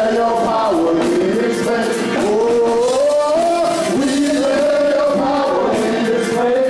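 Worship music: a voice singing long, gliding notes over instrumental accompaniment.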